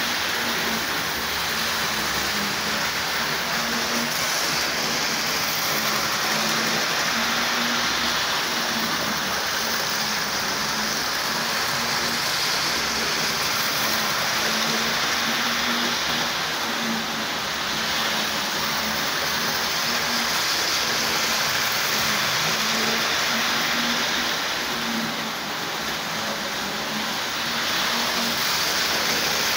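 Model trains running on the layout, a Hornby class 31 diesel and a Helmingham Hall steam locomotive: a steady whirring hiss from the electric motors and wheels on the rails, with a faint hum that comes and goes.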